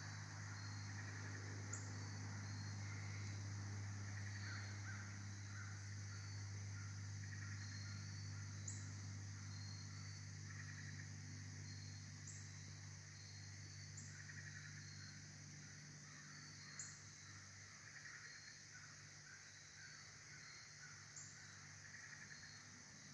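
Faint woodland insect chorus: a steady high drone with a short chirp repeating above it, over a low steady hum. A few sharp ticks come through at irregular moments.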